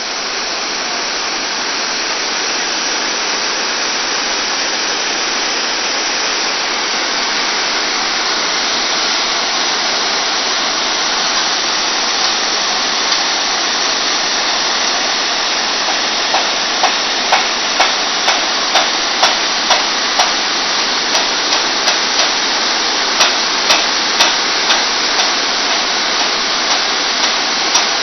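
Loud, steady rush of floodwater. From about halfway through, sharp clicks come roughly twice a second over the rush.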